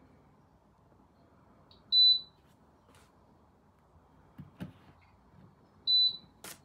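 Two short, high electronic beeps about four seconds apart from the IAGREEA portable countertop dishwasher's beeper, with a few faint clicks between them.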